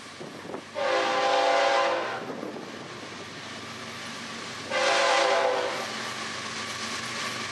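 Florida East Coast Railway diesel freight locomotive sounding its air horn in two blasts, the first about a second and a half long, the second about a second, over the growing rumble of the approaching train.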